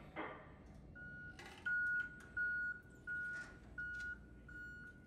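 Electronic backup alarm of store lift equipment, such as a forklift: a single steady tone beeping on and off at an even pace, about three beeps every two seconds, starting about a second in.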